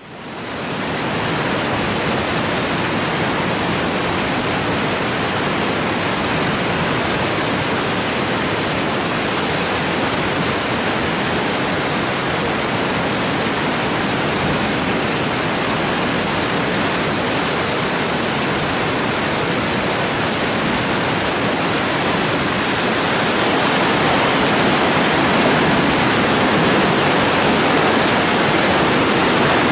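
Whitewater rushing steadily down an artificial slalom canoe channel: a loud, continuous, even rush of rapids. It fades in over the first second and grows slightly louder about three quarters of the way through.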